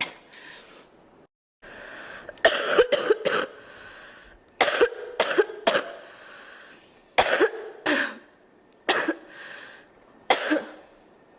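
A girl coughing in bouts of one to four sharp coughs, about a dozen in all, with breathing audible between the bouts.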